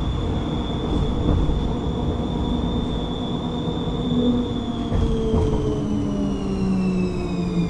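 Electric tram running, with a rumble under a high whine that starts falling steadily in pitch about halfway through as the tram slows down.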